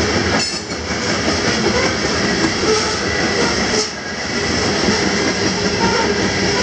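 Loaded CSX coal hopper cars rolling past over the rails: a steady, loud clatter of steel wheels on track, dipping briefly about half a second in and again about four seconds in.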